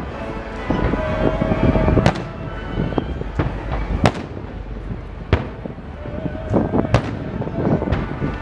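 Aerial fireworks shells bursting in a series of sharp booms over a low rumble. The loudest booms come about two, four, five and seven seconds in.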